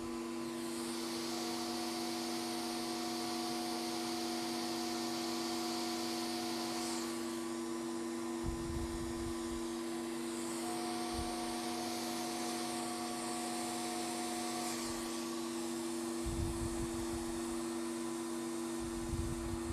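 Ellman radiofrequency surgery unit sounding its steady activation tone twice as the wire loop is fired on the skin, first for about five seconds starting a second in, then for about four seconds starting near eleven seconds in, with a hiss alongside each firing. Under it runs a constant low electrical hum.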